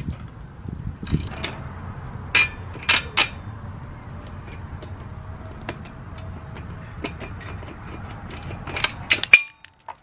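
Ratchet wrench and the metal saddle clamp on a bicycle seat post: scattered sharp metallic clicks and knocks as the old saddle's clamp is loosened and the saddle is worked off the post. The loudest three come about two and a half to three seconds in, with another cluster near the end that stops abruptly.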